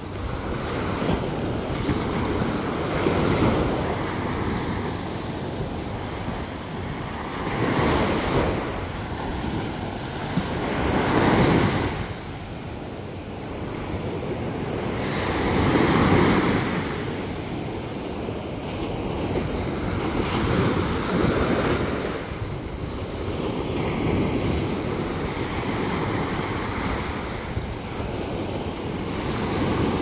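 Sea surf breaking on a sandy shore, each wave swelling to a rush of foam and falling back, every few seconds, with wind rumbling on the microphone.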